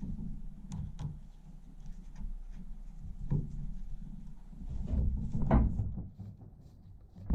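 Handling sounds of a chainsaw being put back together: scattered light clicks and knocks of plastic parts, with one louder thump about five and a half seconds in.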